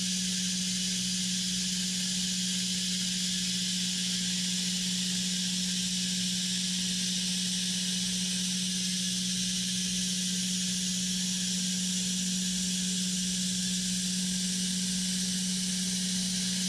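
A wood sawing machine running steadily: a constant low hum with an even hiss over it, unchanging throughout.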